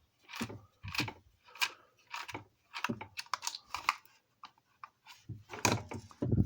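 Screwdriver working a stubborn screw in a plastic surveillance-camera housing: a run of irregular clicks and scrapes, roughly two a second. The screw keeps turning without coming out.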